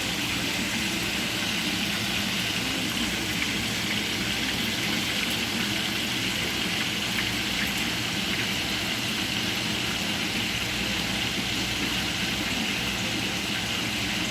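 Chicken browning in hot oil in a pot, a steady sizzle throughout with a few faint pops.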